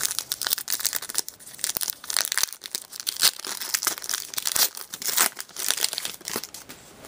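Crinkly rustling and quick sharp crackles as trading cards and a foil card-pack wrapper are handled.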